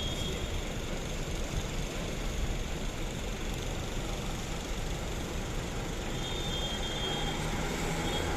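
Steady low rumble of bus engines and road traffic, even throughout with no horn.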